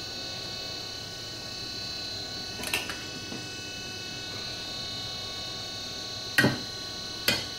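A serving spoon knocking three times on the glass baking dish as cooked basmati rice is spooned in, the second knock the loudest, over a steady background hum.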